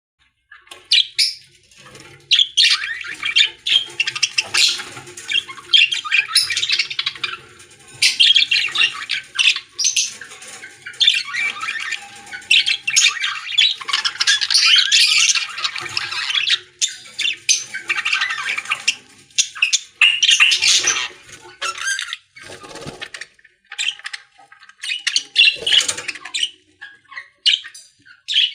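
Lovebirds and budgerigars kept together, many of them chattering and squawking at once in a dense, high-pitched din that thins briefly a little over three quarters of the way through.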